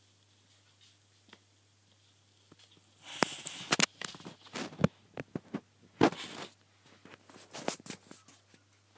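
A puppy chewing and tugging at a slipper: several short bursts of rustling and scraping, with sharp clicks, starting about three seconds in.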